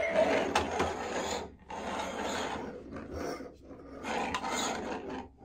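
Wheels of two Disney Cars Track Talkers toy cars, Lightning McQueen and DJ, rolling back and forth across a wooden tabletop with a rasping rub, in pushes broken by brief pauses about a second and a half in and again after three and a half seconds.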